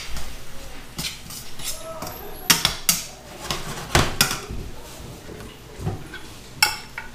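Metal tongs clanking against a frying pan as greens are turned, a handful of sharp clinks spread unevenly through.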